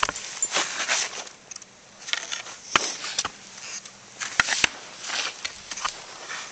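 Skis hissing and scraping over snow in uneven bursts, with a few sharp clacks, the loudest about three and four and a half seconds in.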